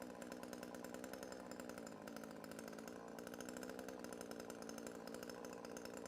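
Chainsaw running at a steady speed, its engine note holding with only slight rises and dips in level.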